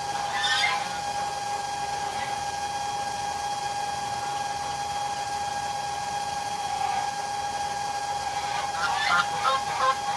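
Geese honking, a brief call near the start and then a run of short, repeated honks from about nine seconds in. Under them a small pump hums steadily as it empties the geese's swimming pool.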